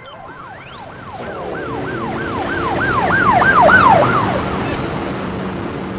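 Police-style siren in yelp mode, rapid up-and-down wails about three a second, growing louder toward about four seconds in and then cutting off. A rising sweep sounds briefly at the start.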